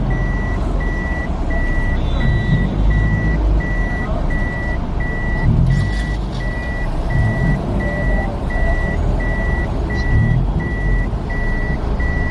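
Vehicle warning beeper giving a steady high beep about twice a second, over the low rumble of a car.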